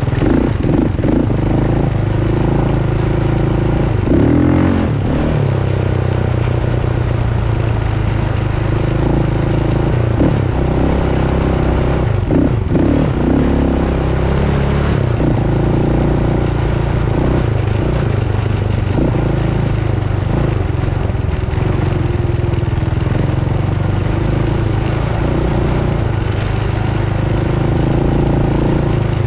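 Engine of a handlebar-steered off-road vehicle running hard across sand dunes, its pitch rising and falling as the rider speeds up and eases off, loudest about 4 and 12 seconds in.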